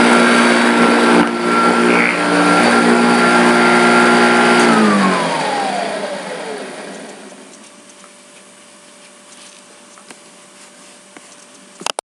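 Hoover Junior upright vacuum cleaner running with a steady whine, then switched off about four to five seconds in, its motor winding down in a falling whine over two or three seconds. A faint steady hum remains, and a sharp click comes just before the end.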